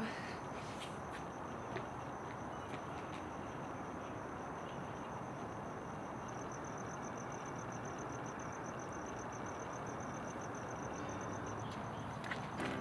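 Crickets chirping at a steady high pitch, the chirp turning into a rapid even pulsing from about halfway through, over a steady background hiss.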